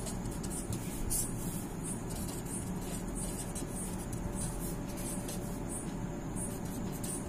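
Pen scratching on paper while writing words by hand, in short irregular strokes over a low steady background hum.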